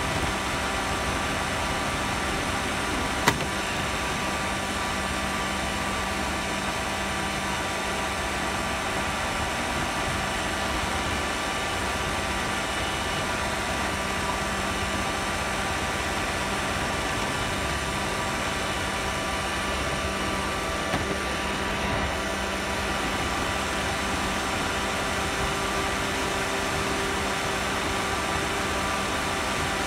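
Roomba robot vacuum running, heard from on top of it: a steady motor and fan hum with several steady whining tones. A single sharp knock comes about three seconds in.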